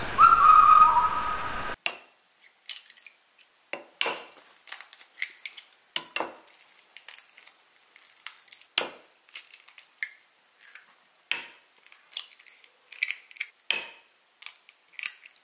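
Duck eggs being cracked one after another and emptied into a bowl. Sharp shell cracks and small clicks come at uneven intervals, roughly one or two a second, with quiet gaps between them. A brief high-pitched call comes first, before the cracking starts.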